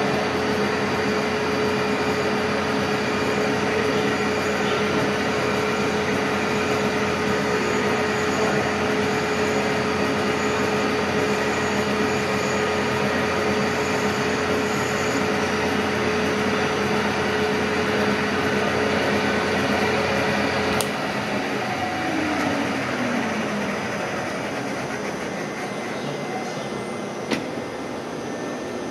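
Vertical milling machine running steadily with a constant hum while a small drill is fed into a steel flange to drill a bolt-pattern hole. About two-thirds of the way through the motor is switched off with a click and the spindle winds down with a falling whine. A single sharp click comes near the end.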